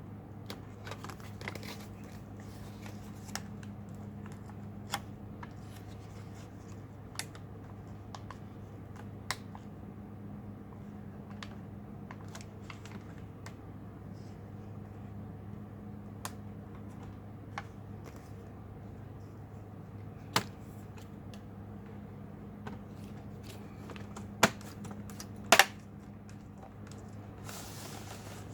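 Scattered light plastic clicks and taps from the HP 15-R029WM laptop's parts being handled and worked on, with three louder clicks in the last third, over a steady low hum.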